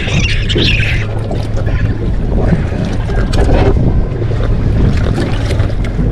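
Wind buffeting the microphone on a small fishing boat, with water moving against the hull and scattered light knocks and clicks.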